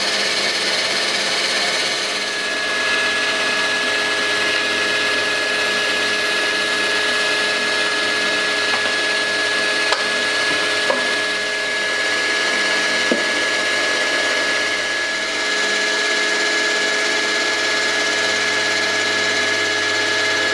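Deckel G1L pantograph engraving machine's spindle driving a small end mill along the edge of a wooden template board: steady machining noise with several steady tones running through it. Three faint ticks come around the middle.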